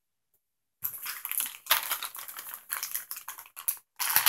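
Items and packaging being handled close to the microphone: a quick run of clicks, taps and rustles that starts after a brief dead silence.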